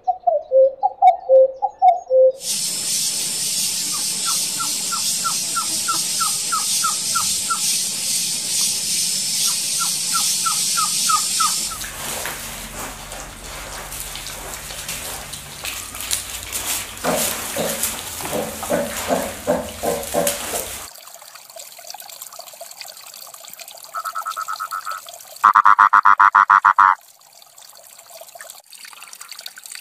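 A common cuckoo gives its falling two-note "cuck-oo" calls for the first two seconds. Then comes a steady hiss with quick runs of high chirps, followed by a sow and piglets with short repeated calls. Near the end a toad's vocal sac drives out a very loud pulsed trill that lasts about a second and a half.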